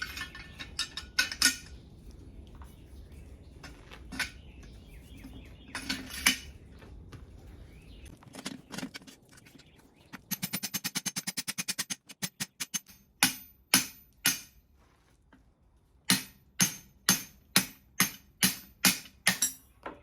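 Hand hammer striking a guillotine tool fitted with butcher dies to cut a hot steel bar, sharp ringing metal-on-metal blows. A fast flurry of light taps comes about halfway through, then a steady run of heavier blows near the end. A low steady rumble sits under the first several seconds.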